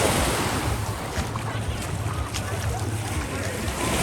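Small sea waves washing onto the beach: one surge at the start eases off, and another builds near the end. Wind rumbles on the microphone underneath.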